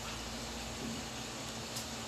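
Steady hiss and low hum of a room air conditioner running.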